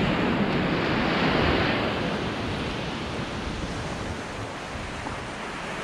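Ocean surf breaking and washing up a sandy beach. The wash swells over the first second or so and then eases off slowly, with some wind rumble on the microphone.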